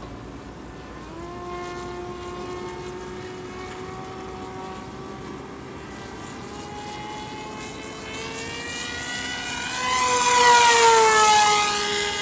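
FPV Raptor RC plane's electric motor and propeller whining overhead. The pitch steps up about a second in and creeps higher, then near the end the plane passes close: the whine grows loud and its pitch falls as it goes by.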